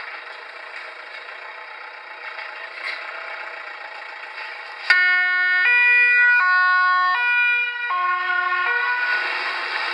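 German Red Cross ambulance's two-tone siren (Martinshorn) switching on about halfway through, alternating between two pitches about every three-quarters of a second for some four seconds before it stops. Before it, only a steady rushing noise.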